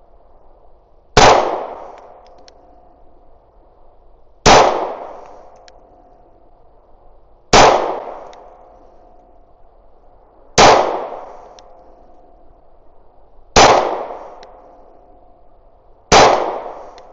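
FN Reflex 9mm pistol fired slow-fire, six shots about three seconds apart, each a sharp crack followed by a long fading echo.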